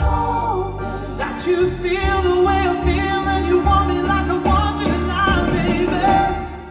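Male singers performing a song with a live band, over a steady bass beat.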